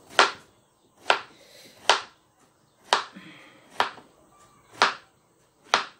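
Knife slicing a zucchini into rounds on a cutting board: seven sharp knocks of the blade striking the board, about one a second.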